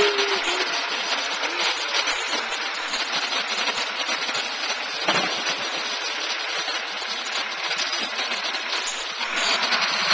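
Heil automated side-loader garbage truck running, its engine and the hydraulics of its lifting arm as the arm empties a wheelie cart and sets it back down. A single knock about five seconds in, and the noise grows louder near the end.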